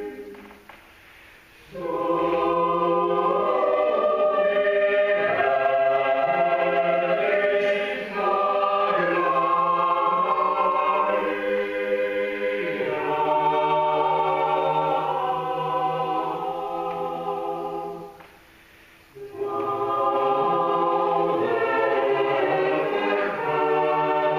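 Mixed chamber choir singing a cappella in several voice parts, with sustained chords; the singing breaks off for a moment between phrases twice, once right at the start and again about 18 seconds in.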